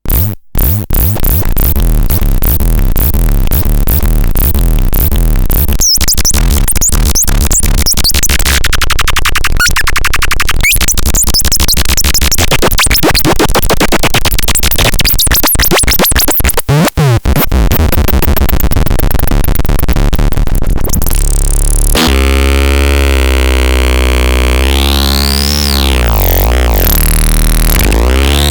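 Electronic synthesizer music: fast, dense pulsing synth sounds. About three-quarters of the way in, it changes to a held deep bass with swooping, sweeping pitch glides above it.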